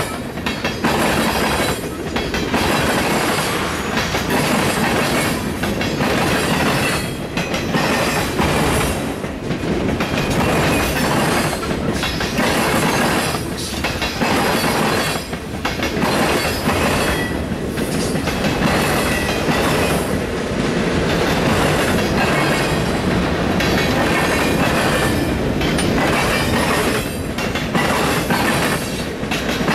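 Freight train cars rolling past close by: a loud, continuous noise of steel wheels running on the rails that dips briefly every second or two.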